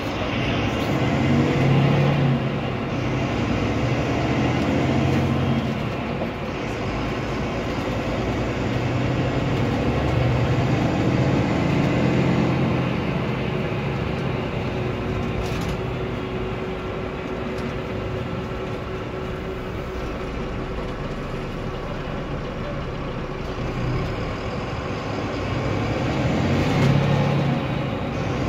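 Volvo B9R coach's diesel engine and road noise heard from inside the passenger cabin while driving, the engine note swelling and rising three times over a steady background of tyre and road noise.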